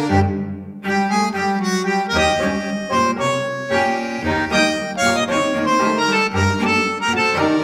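Instrumental background music: sustained melody notes over a recurring bass line.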